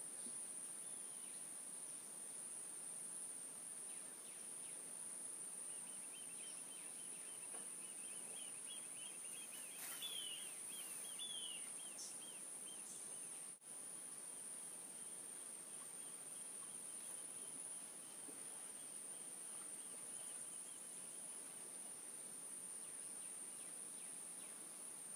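Steady high-pitched insect trill. A run of quick repeated chirps joins it from about six to twelve seconds in.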